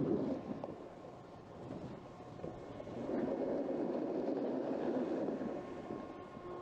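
Snowboard sliding and carving over packed snow, a rough scraping rumble that eases off about a second in and swells again from about three seconds in.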